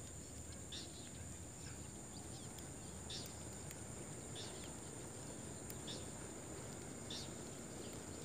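Faint outdoor ambience: a bird repeats a short, high call, slightly falling, about every second and a half, over a steady high insect drone.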